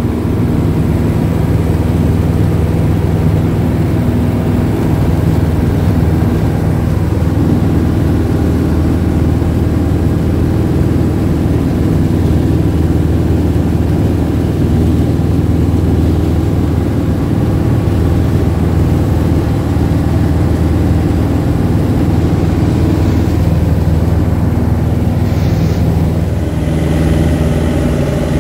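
Small high-wing bush plane's piston engine and propeller droning steadily in flight, heard from inside the cabin.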